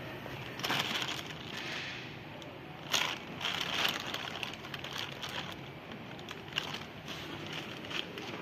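Thin clear plastic bag crinkling and rustling as a cat shifts around inside it, with louder bursts about half a second in and again about three seconds in, then smaller scattered crackles.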